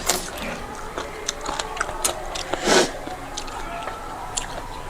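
Close-miked eating of rice and curry by hand: chewing and wet mouth clicks and smacks, with one louder, longer wet noise about two and a half seconds in.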